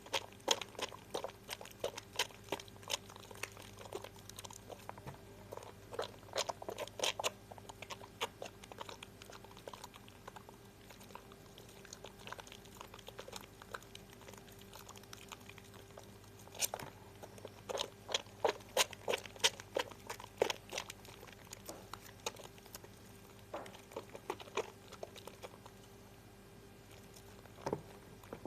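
Harmony lemon bar soap being lathered: wet, squishy clicks and crackles of foam in clusters, with quieter stretches between.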